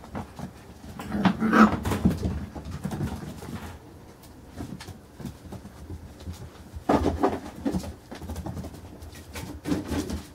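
Five-week-old Carolina Dog puppies making small vocal sounds as they play, with two louder bursts about a second and a half in and again around seven seconds.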